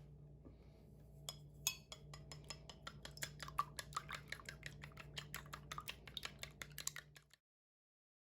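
A rapid, irregular run of sharp taps from kitchen food preparation, starting about a second in, over a steady low hum; the sound cuts off abruptly near the end.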